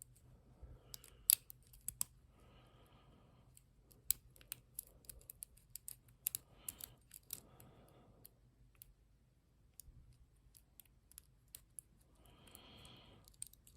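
Faint, irregular small metallic clicks of a Sparrows Euro hook pick lifting and setting the pin tumblers of a Lockwood 234 padlock held under tension.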